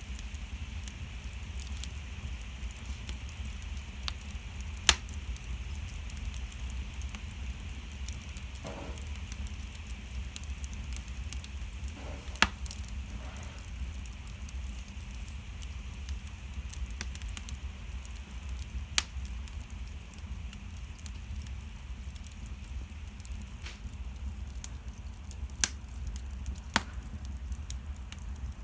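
Wood fire in an open fireplace crackling: a steady low rumble and hiss under many small ticks, with a few sharp pops spread through.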